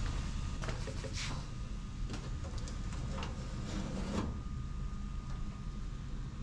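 Barbecue being opened and handled: a few short scraping, sliding and creaking sounds over a steady low hum.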